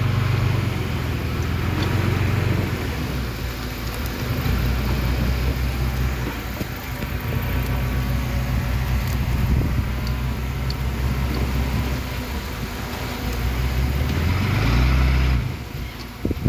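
Heavy diesel engine of earthmoving machinery running under varying load, its note shifting up and down. Near the end it revs higher, then drops away suddenly.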